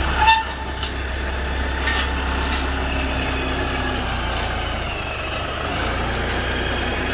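Tractor diesel engine running steadily with a low hum, as the tractor's pallet forks are lined up under a load. A short, sharp, high-pitched sound comes just after the start.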